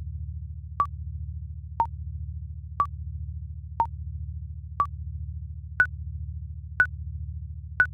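Countdown-timer beeps, eight short electronic blips one a second, alternating between two pitches with the last three higher as time runs out, over a steady low synth drone.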